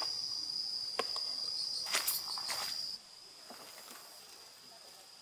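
Crickets chirring steadily, with a few sharp clicks and a brief rustle of a plastic package being handled. The sound cuts off suddenly about three seconds in, leaving only a faint background.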